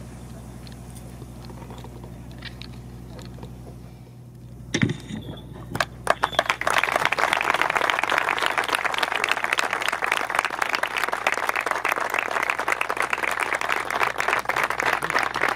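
About five seconds of quiet with a low steady hum, then a thump. From about six seconds in, a crowd applauds steadily, closing a minute of silence.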